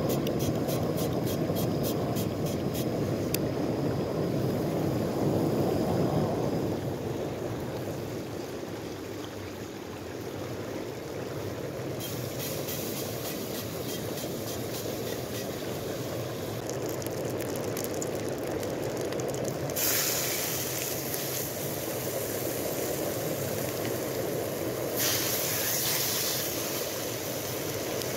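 A small river rushing steadily, with a hiss over it from about twelve seconds in. About twenty seconds in, and again about five seconds later, a louder sizzle as bacon rashers go into the hot pan of a gas-fired Trangia stove.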